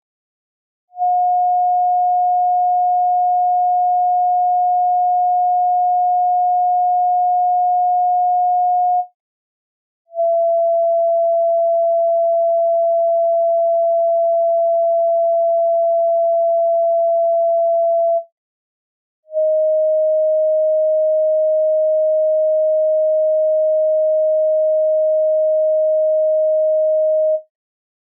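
Electronically generated pure sine tones played as chakra frequencies. Three steady tones of about eight seconds each, separated by short silences. Each tone is a little lower in pitch than the one before.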